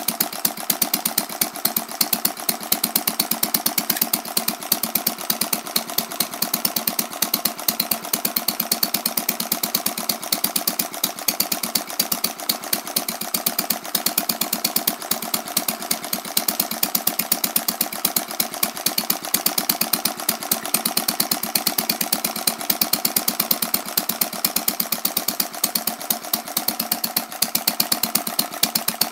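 A small hand-built model Centaur engine running steadily, with a fast, even train of sharp firing beats.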